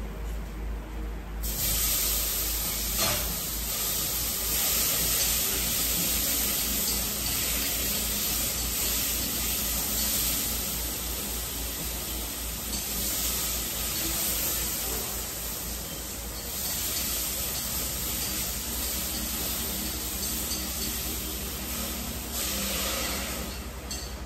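Food sizzling in a hot pan on the stove: a steady hiss that starts about a second and a half in and eases for a few seconds past the middle.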